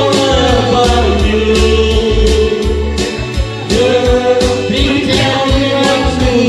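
Karaoke singing: a man's voice singing through a microphone and PA, holding long notes over a backing track with a steady drum beat.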